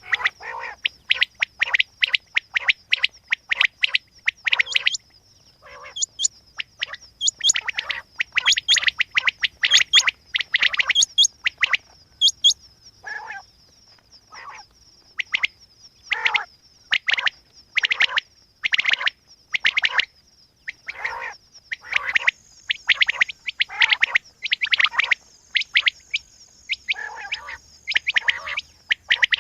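Quail calling: dense runs of short, sharp chirps, several a second, broken by brief pauses. A steady thin high-pitched tone runs underneath.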